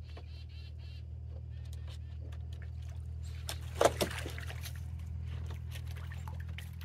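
Water splashing and sloshing in a plastic paddling pool as Toulouse and Emden geese bathe and move about in it, with one loud splash about four seconds in as a goose climbs out over the rim and another raises its wings. A steady low hum runs underneath.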